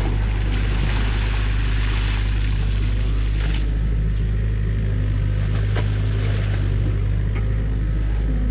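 Mini excavator's diesel engine running steadily under load. Water and wet mud splash and run off the bucket during the first few seconds as it lifts a load out of the stream, and a few faint knocks follow.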